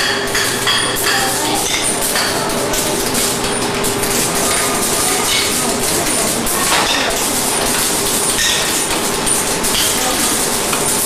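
Work noise in a PVC rubber label workshop during colour dispensing: a steady hiss-like din with scattered light clinks and knocks, and voices in the background.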